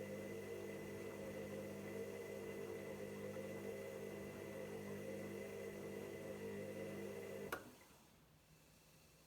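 Hoover washing machine motor turning the drum in its load-weighing "kg mode", a steady hum with a slowly wavering tone. It cuts off suddenly with a click about seven and a half seconds in.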